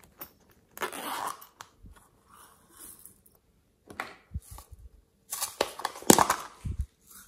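Hands handling and opening small plastic containers, with crackling, rustling and sharp clicks. The loudest bursts come about a second in and again from about five seconds to near the end.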